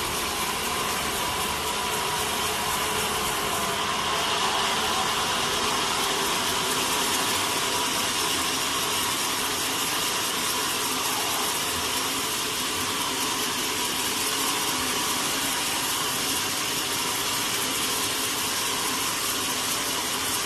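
Sawmill machinery running steadily, a continuous mechanical whirring noise.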